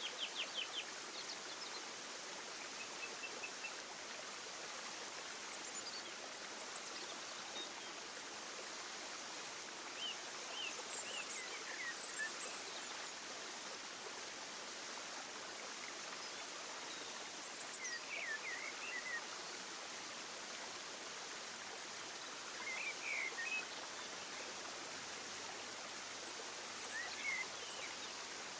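Steady rush of flowing water, with short bird chirps breaking in every few seconds.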